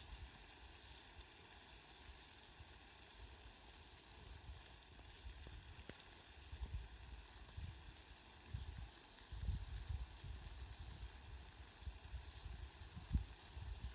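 Steady rain with an even hiss. Low rumbling bumps come and go underneath, growing more frequent in the second half.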